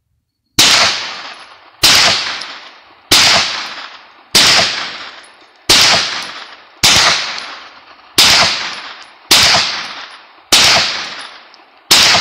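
Hi-Point 995TS 9mm semi-automatic carbine fired ten times at a steady pace, about one shot every 1.25 seconds, each shot echoing off the surrounding rock for about a second.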